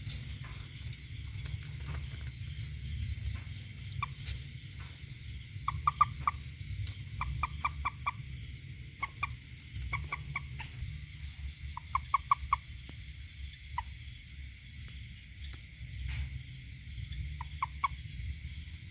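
A toad calling in short groups of two to four quick, clipped notes, repeated every second or two, over a steady low rumble.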